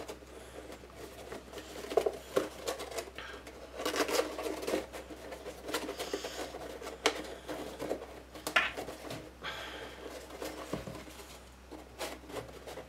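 Cardstock box pieces being handled and pushed together: scattered taps and clicks with papery scraping and rubbing as the bottom of the paper box is worked into the top, a fit that doesn't go in.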